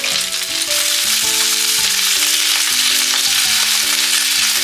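Cabbage and green peppers sizzling in a frying pan over medium heat, a little water sprinkled on so they steam as they fry; chopsticks toss them later on. Soft background music with held notes underneath.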